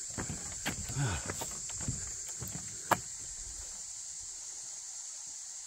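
Steady high-pitched drone of summer insects. Over it, a few footsteps and knocks on wooden bridge planks sound in the first three seconds, the sharpest about three seconds in.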